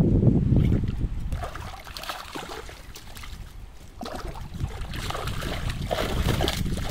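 Water splashing and sloshing as a cast net holding tilapia is drawn in through shallow water, with the fish thrashing at the surface. The splashing grows busier from about four seconds in.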